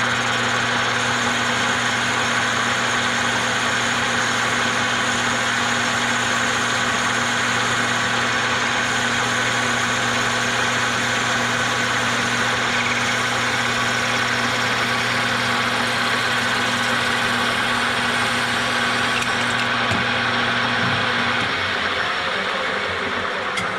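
Metal lathe running with a steady hum, its chuck spinning an LED light bulb while a parting tool cuts through the bulb's plastic housing. Near the end the lathe shuts off and begins to wind down.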